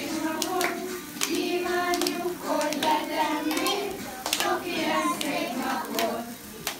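A group of children singing a birthday song together, clapping along in time, with the singing tailing off near the end.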